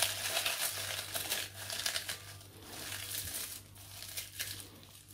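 Puffed rice cakes crackling and crunching as they are crumbled by hand into a glass bowl, busiest in the first couple of seconds and thinning out after.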